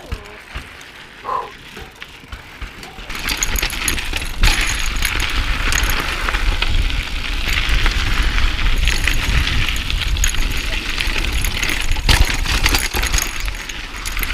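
Mountain bike descending a rocky trail: tyres crunching over stones and the bike rattling and clattering, with a low rumble on the microphone. The noise gets much louder about three seconds in.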